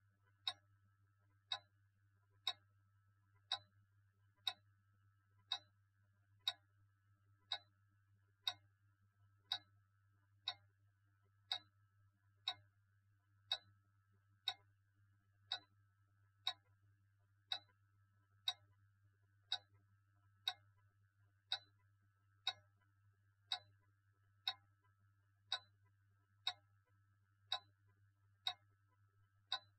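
A clock ticking steadily, one sharp tick about every second, over a faint low hum.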